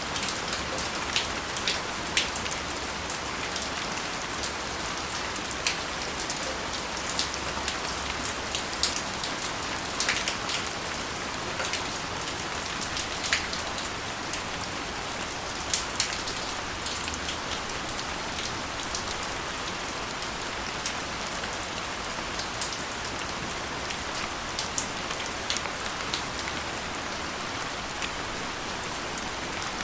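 Steady rain pattering, a continuous hiss with many sharp, irregular drop impacts throughout.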